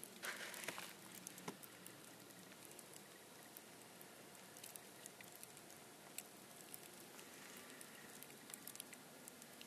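Near silence: a faint outdoor hiss with scattered soft ticks and a brief rustle about half a second in.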